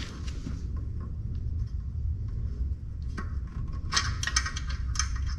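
Light metallic clicks and rattles of a steel seat-recliner release cable and its plastic-tabbed housing being worked loose from a stock Jeep TJ seat frame, coming in a cluster from about three seconds in, over a steady low hum.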